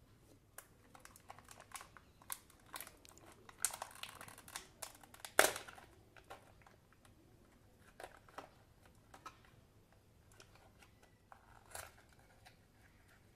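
Plastic blister pack and card backing being peeled apart by hand, then a small cardboard box opened: scattered crinkles and clicks, with one loud crackle about five seconds in.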